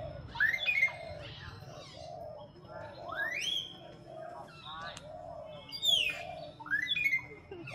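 High-pitched animal calls, about four loud ones that each sweep up and then fall in pitch, over a softer, lower call repeating roughly once a second.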